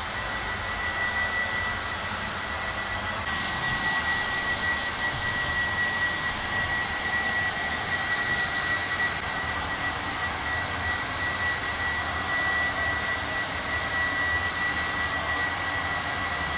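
Small electric blower motor running steadily: a rushing of air with a high, even whine on top.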